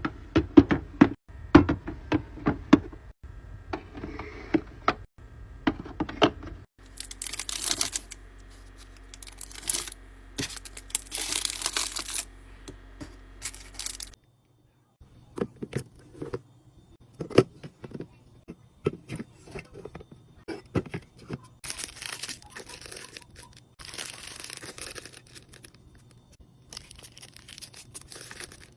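Packaging being torn open and crinkled, with a run of sharp clicks and knocks as items are handled and set down.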